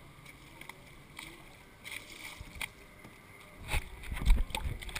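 Faint clicks and splashes of lake water around the kayaks, then about four seconds in a burst of low rumbling and several sharp knocks as the kayak-mounted camera is jostled.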